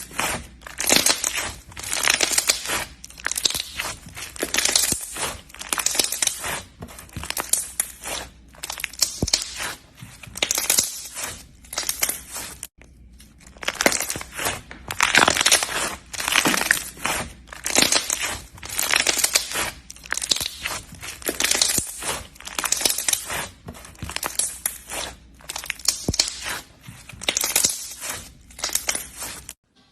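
Slime being squeezed and pressed by hand, crackling in repeated short strokes a little more than once a second, with a brief pause about halfway through.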